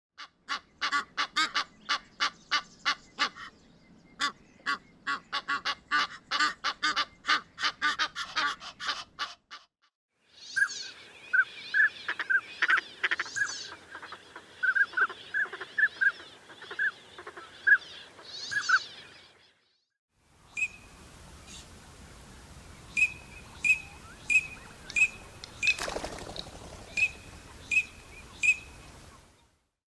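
Three waterfowl recordings in turn, each ending in a brief silence. First an Egyptian goose calls in a fast, dense run of harsh honking notes. Then a northern pintail gives short whistled notes over a noisy background, followed by a Eurasian teal's short high whistles in a steady run of about two a second.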